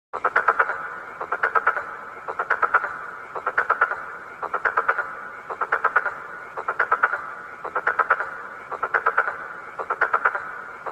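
A croaking call repeating about once a second, each call a quick train of rapid pulses.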